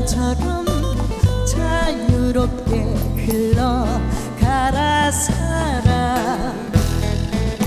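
Slow ballad music played live: a wavering lead melody with vibrato over sustained bass notes and a soft beat.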